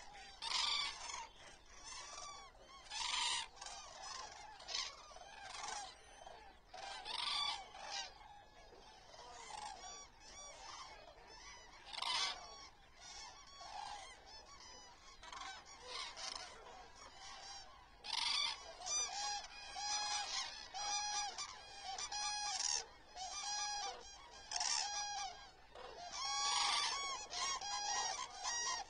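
A large flock of common cranes calling, loud trumpeting calls standing out over a continual chorus of the flock. In the second half, calls come in an even series about once a second.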